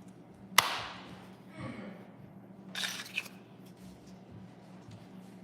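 Play-Doh toys being handled: a sharp click about half a second in, then a short scraping noise near the middle, over a faint steady hum.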